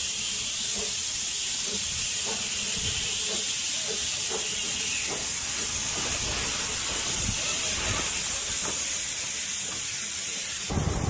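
Narrow-gauge steam locomotive passing at walking pace, hissing steam steadily, with faint regular knocks from the engine and its train. The hiss stops abruptly near the end.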